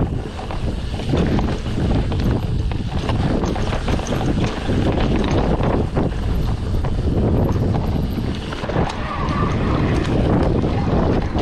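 Heavy wind buffeting the microphone of a camera riding on a mountain bike, surging and easing unevenly, with scattered knocks and rattles from the bike over rough ground.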